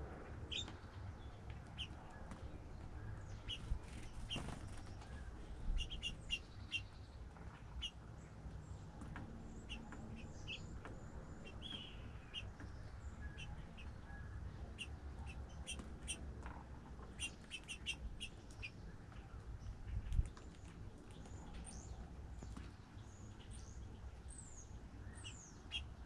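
Small songbirds chirping, with many short, high chirps scattered throughout and a few sliding, downward notes near the end. A steady low rumble runs underneath, and a single dull thump comes about three-quarters of the way through.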